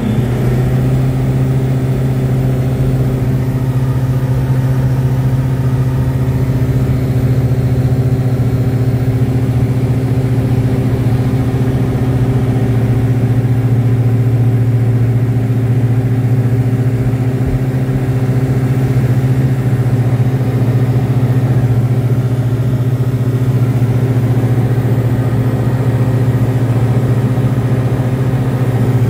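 Diamond DA40NG's Austro AE300 turbo-diesel engine and propeller at full take-off power during the take-off roll and lift-off. The pitch settles about a second in, then holds as a loud, steady drone.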